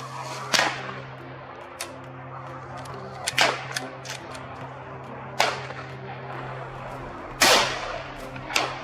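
Four rifle shots fired at running wild boar, about two seconds apart, each followed by a short echo.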